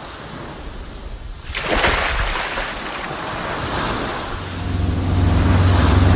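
Sound effect of ocean waves washing, with a louder rush about a second and a half in. Then, from about four seconds in, a motorboat engine comes in, running steadily.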